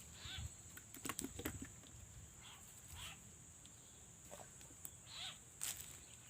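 Short squeaky cries a second or two apart from a frog seized by a snake, its distress calls, over a steady high insect buzz. A few clicks and rustles come about a second in.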